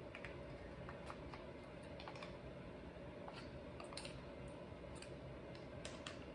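Faint, scattered small clicks and scrapes of a thin screwdriver tip working against the plastic housing of an Echo CS2511-T chainsaw, over a low steady background hum.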